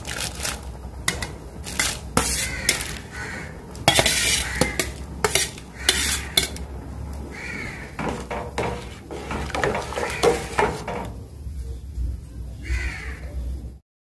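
Steel spoon clinking and scraping against a steel plate and a steel pot as boiled banana-stem pieces are tipped into curd kadhi and stirred in, with many irregular sharp clinks. The sound cuts off suddenly near the end.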